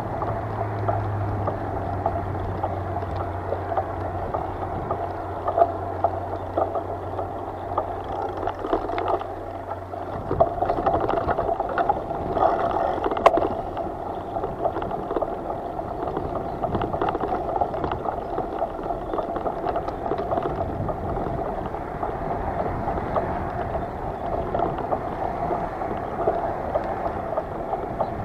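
Steady rushing and gurgling of moving water, with small splashes and clicks throughout. A low steady hum runs underneath and cuts off suddenly about ten seconds in.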